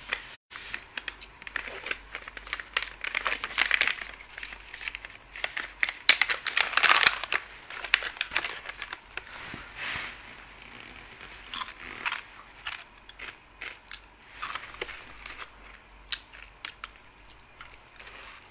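Plastic snack packet crinkling and crackling as it is handled, with crunching of crisps being eaten; the crackles are thickest in the first half and thin out later.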